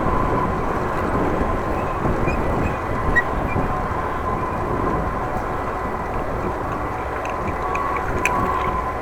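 Wind buffeting the microphone of an action camera on a moving bicycle: a steady low rumble that barely changes. A faint steady whine and a few light ticks sit under it near the end.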